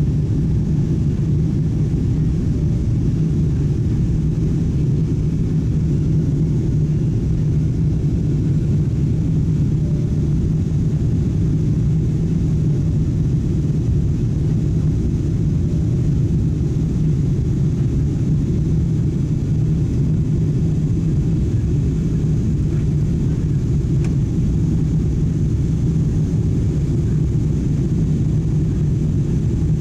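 Steady low rumble inside the passenger cabin of a Boeing 777-200 climbing after takeoff: its twin jet engines at climb power and air rushing past the fuselage.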